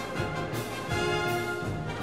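Background music with held chords over a steady low pulse.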